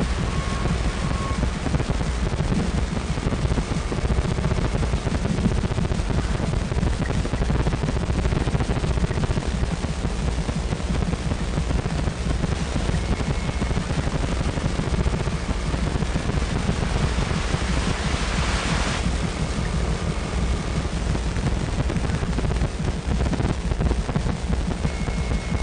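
Abstract sound-design soundtrack: a dense, steady crackling rumble, with faint thin tones coming and going and a brief hissing swell about two thirds of the way through.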